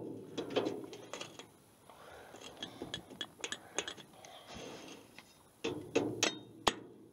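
Pliers working the pin at a garden cart's wheel axle: irregular small metallic clicks, clinks and scrapes, with a sharp click near the end, as the pin is straightened to free the wheel.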